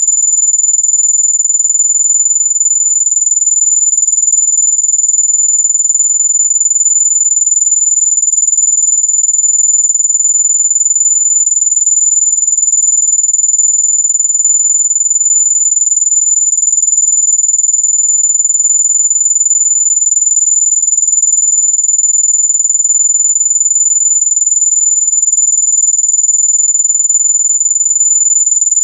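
Electronic mosquito-repellent tone: a single very high-pitched pure tone held perfectly steady and unchanging.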